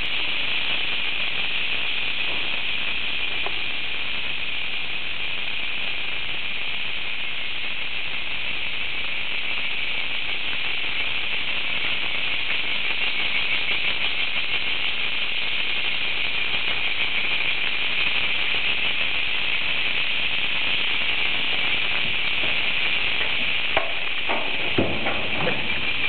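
Cicadas singing in a steady, unbroken chorus, a high, shrill buzzing hiss. A few faint knocks come near the end.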